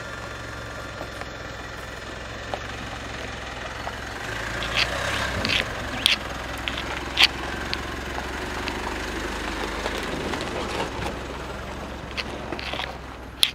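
Mitsubishi Pajero Sport's turbodiesel engine running low and steady as the SUV crawls over a rutted, rocky dirt track. Its tyres crunch on stones, with sharp cracks of rock about five to seven seconds in as it passes close.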